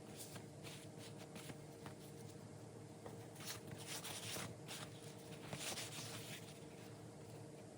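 Soft rubbing strokes of hand work on a leather wallet, a few louder swishes in the middle, over a faint steady hum.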